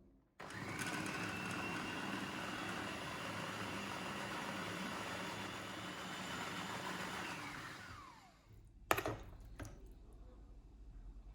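Electric blender running steadily for about seven seconds, mixing the raw minced-beef and vegetable topping, then winding down with a falling whine as it is switched off. A sharp knock follows about a second later.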